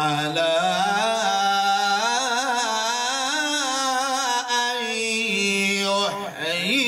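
A man's voice reciting the Quran in melodic tajweed style, drawing out long, wavering, ornamented notes. There is a short break for breath about six seconds in, then the chant resumes.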